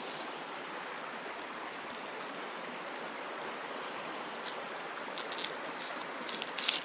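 Steady rushing outdoor background noise, even and unchanging, with a few faint small clicks near the end.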